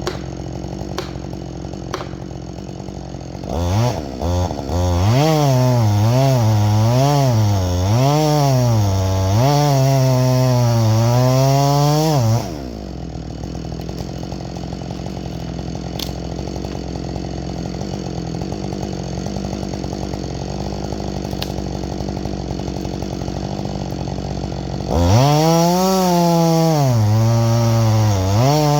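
Husqvarna 562XP two-stroke chainsaw idling, then revved up for about nine seconds, its pitch dipping and rising as it cuts under load. It drops back to idle and revs up again near the end.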